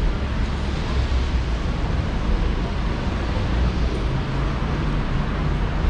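Heavy rain on a busy city street: a steady hiss of falling rain with a low traffic rumble underneath.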